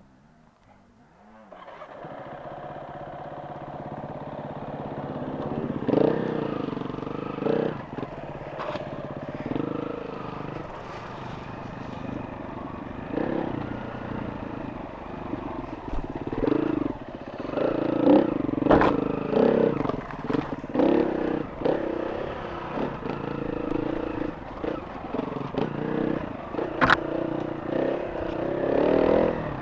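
Enduro motorcycle engine running, growing louder over the first few seconds and then rising and falling in revs, with frequent sharp knocks and clatter.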